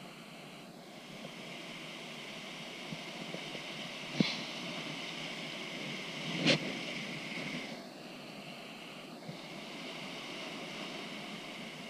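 Rushing whitewater of river rapids heard from the bow of an inflatable raft, a steady wash of noise. Two sharp knocks or slaps come about four and six and a half seconds in.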